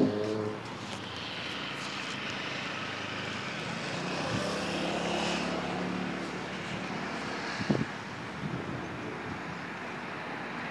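A steady distant engine drone with a faint hiss, swelling a little in the middle, opening with a loud knock and with a smaller knock about three-quarters of the way through.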